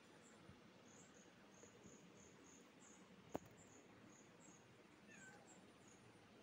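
Near silence: faint high chirping repeating several times a second, one sharp click about three seconds in, and a brief, faint falling mew from a kitten about five seconds in.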